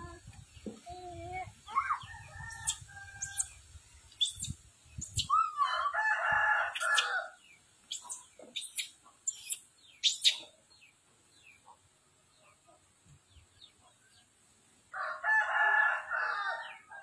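A rooster crowing twice, about six seconds in and again near the end, with short high chirps in between.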